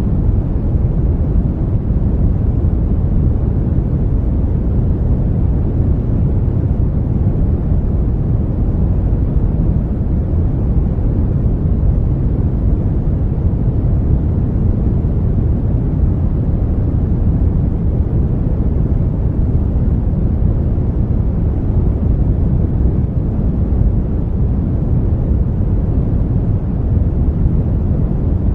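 Brown noise: a steady, even hiss weighted toward the bass, a deep rumble-like rush with little high end and no change in level.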